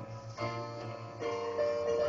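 Keyboard accompaniment to a musical-theatre number, playing sustained chords that change about half a second in and again a little past one second.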